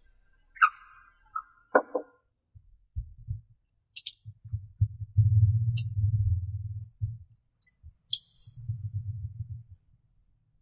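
Hands fitting a USB/FM player board into a steel amplifier chassis front panel: a few sharp clicks and a short ringing knock in the first two seconds, then scattered clicks over stretches of low, muffled rumbling handling noise, loudest in the middle.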